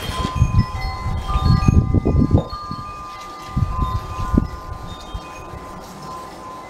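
Short, ringing chime tones at many different pitches, scattered throughout, over a steady faint whine. Low rumbling gusts come in the first few seconds and again briefly near the middle.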